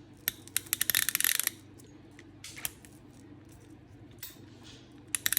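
PENN Fathom casting reel's ratchet clicker clicking as the spool turns: a fast run of clicks about a second in, a few single clicks, then another fast run near the end. The newly fitted ratchet gear is engaged and working, with a prominent click.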